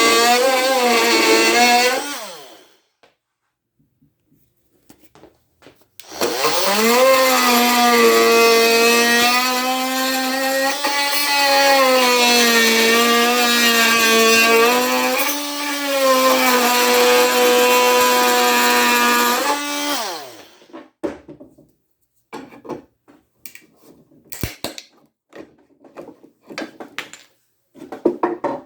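Ryobi brushed oscillating multi-tool with a wood blade cutting into a 2x6, a cut it makes very poorly. It runs for about two seconds and stops, starts again around six seconds in with its pitch rising as it comes up to speed, runs steadily with a slightly wavering pitch for about fourteen seconds, then winds down. Scattered knocks and clicks of handling follow.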